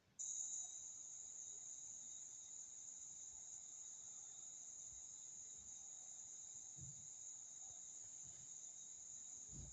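Steady, continuous high-pitched chorus of insects, starting suddenly just after the beginning, with a couple of faint low thuds near the end.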